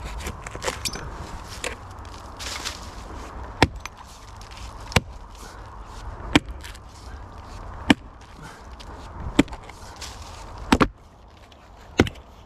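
A hand tool striking wood in a steady rhythm, a sharp hit about every second and a half, seven in all, with lighter knocks and scraping before the strikes begin.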